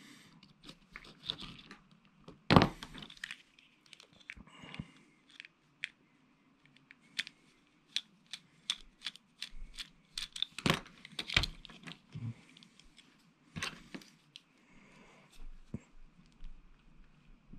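Scattered small clicks and taps of needle-nose pliers, a small screwdriver and plastic parts handled on an HO-scale model locomotive chassis as couplers are fitted to the motor shaft. One sharper click comes about two and a half seconds in, and a few more come later.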